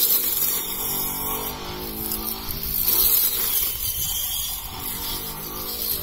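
Battery-powered electric brush cutter running with a steady pitched motor sound, its blade cutting through standing wheat stalks. The sound swells louder with each sweep through the crop, about every three seconds.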